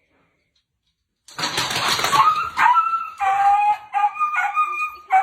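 A dog vocalizing, starting about a second in: a rough bark-like burst, then a run of short, high, held howling calls.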